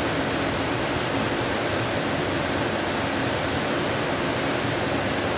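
Heavy rain pouring steadily onto trees, an even hiss that does not let up.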